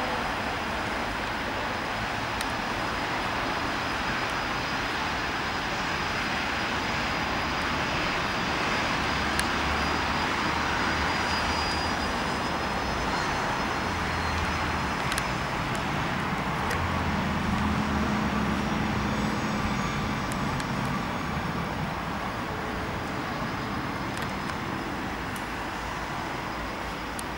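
Bombardier CRJ-200's two General Electric CF34 turbofans running, a steady jet roar with a thin high whine that fades about halfway through.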